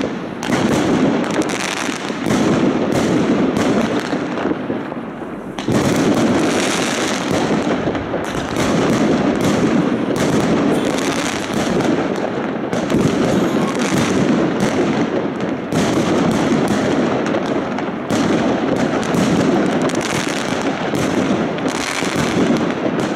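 Many fireworks going off at once: a dense, unbroken crackle of bangs and pops, easing off briefly about five seconds in and then swelling again.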